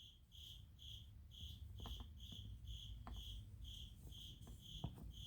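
Faint cricket chirping, short high chirps repeating evenly about twice a second, with a few faint ticks from something being handled.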